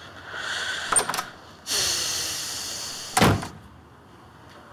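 A door: a click about a second in, a rushing hiss, then the door shutting with a heavy thump just after three seconds.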